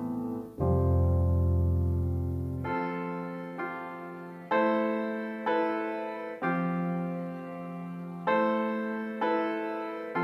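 Background piano music: a slow piece, chords struck every second or two and left to fade.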